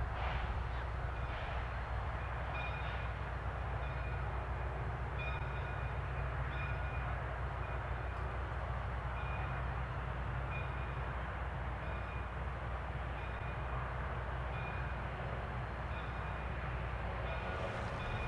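1920 Baldwin 0-6-0 steam locomotive standing with its train, venting steam: a steady hiss over a low rumble, with short faint high tones now and then.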